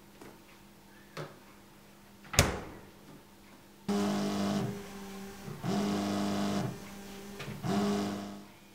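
A fridge door knocks shut, then an iPhone vibrates on a hard surface in three buzzes of under a second each, rattling against it: an incoming call.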